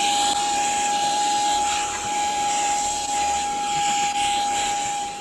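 Small hand vacuum cleaner running at full speed, a steady high whine over a rushing hiss of air, swelling and dipping slightly as it is moved about.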